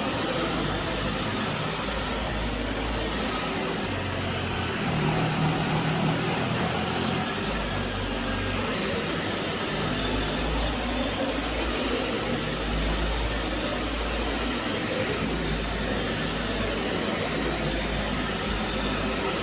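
Vacuum cleaner running steadily, its low rumble rising and falling every few seconds.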